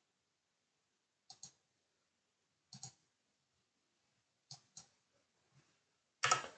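Computer mouse clicking in quick pairs, three double-clicks about a second and a half apart, with a faint single click after them. A louder, longer burst of noise comes at the very end.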